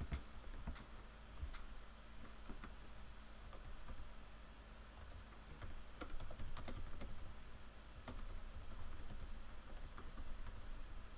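Typing on a computer keyboard: faint, irregular key clicks in short runs with pauses between them.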